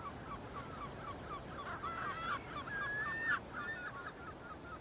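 A flock of birds calling: many short, quick calls overlapping, with one longer held note about three seconds in.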